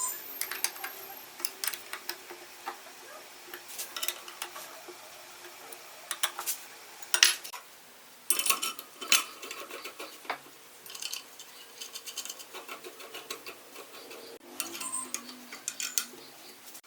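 Irregular light metallic clinks and knocks, some in quick clusters, as metal parts are handled and set down.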